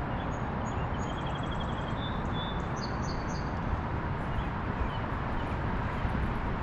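A few short bird chirps and quick trills in the first half, over a steady low rumble of outdoor background noise.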